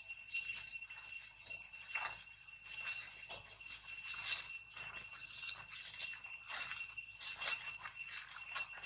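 A steady high-pitched insect drone, held on two unbroken tones, with many short, sharp sounds scattered over it.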